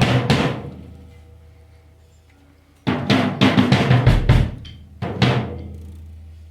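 Drum kit played in short runs of quick hits for a sound check, each run ringing out: one at the start, another about three seconds in, and a brief last one just after five seconds. A low steady hum sits underneath.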